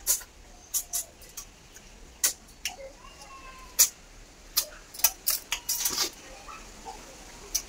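Cooked snail shells clicking against a steel plate as they are picked through by hand, in sharp, irregular clicks with a quick cluster a little past the middle.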